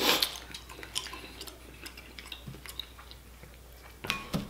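Crab shells cracking and clicking as boiled crab legs are broken apart and picked by hand, with a louder burst of cracking right at the start. After it come scattered small clicks, and a short cluster of them about four seconds in.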